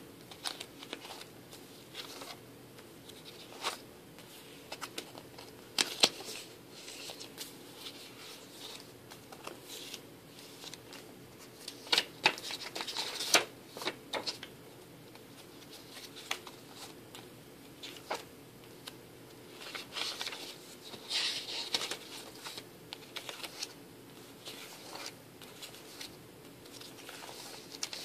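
Pages of a disc-bound scrapbook being turned by hand: paper and plastic page sleeves rustling and crinkling, with scattered light clicks and louder flurries of rustling around the middle.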